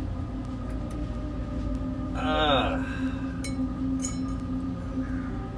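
A steady low hum with a constant tone, and a man's voice making a brief falling wordless sound about two seconds in.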